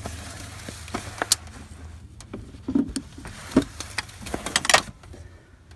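Scattered clinks and knocks of hands and a metal wrench being fished out from among hoses in a car's engine bay, over a steady low hum that fades near the end.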